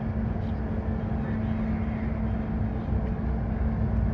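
Sado Kisen ferry's engines and shipboard machinery running as a steady low drone with a constant hum.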